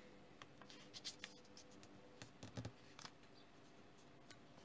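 Faint, irregular rustles and light crackles of origami paper being turned over, folded and creased by hand.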